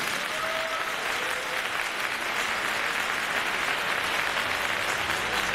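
Audience applauding steadily after a dance performance.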